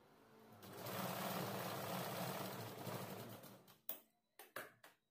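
Sewing machine stitching a seam. It starts about half a second in, runs steadily for about three seconds, then trails off into a few short separate stitches near the end.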